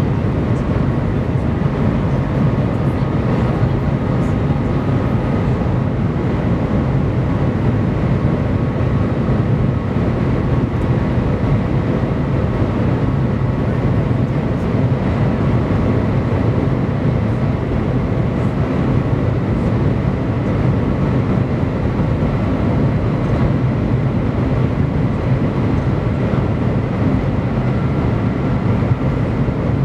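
Steady low rumble inside the cabin of the Shanghai Maglev train running at around 400 km/h and still gaining speed toward its top speed of about 430 km/h, with a faint steady whine above it.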